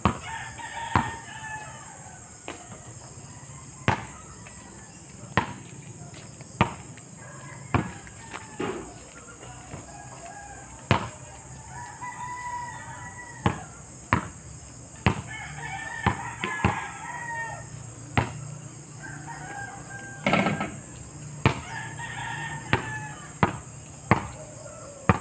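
Basketball bouncing on an outdoor asphalt court, one sharp bounce every second or so, with a louder knock about twenty seconds in. Roosters crow several times in the background.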